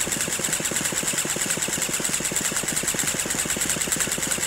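Small gas engine of an RC truck being cranked over without catching: a steady, rapid, even knocking with a pulsing high whine. Its starting trouble is blamed on a lack of fuel or spark.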